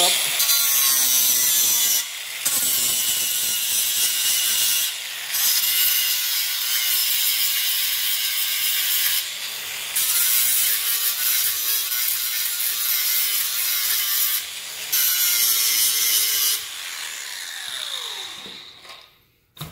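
Cordless angle grinder grinding the steel bars of a combine key stock grate clean to prepare them for welding, in long passes with four brief breaks where the disc comes off the metal. Near the end the trigger is let go and the motor winds down with a falling whine.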